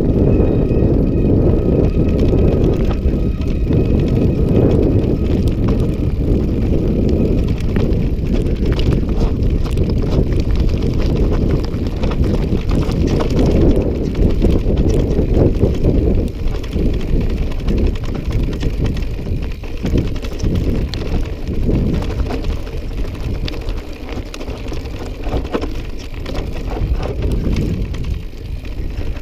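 Mountain bike riding down a rough, steep trail: tyres rumbling over stones and the bike rattling with many small knocks, mixed with wind buffeting the microphone.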